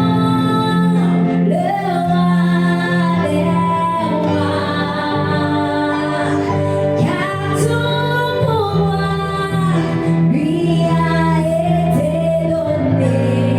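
A woman singing a worship song, her melody gliding between long held notes over a sustained instrumental accompaniment.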